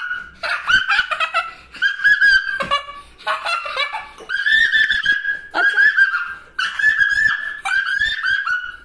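A young boy imitating a witch: a string of high, screechy cackling cries, one after another roughly once a second with short breaks between.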